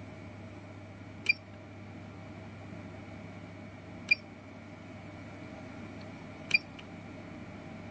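Three short key-press beeps from an East Tester ET5411A+ DC electronic load, about two and a half seconds apart, each one switching its load on or off, over a steady low hum.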